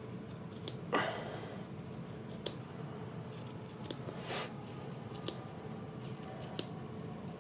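Scissors cutting into a plush doll's velour fabric: a handful of separate sharp snips spread out, the loudest and longest about a second in and again just past the middle.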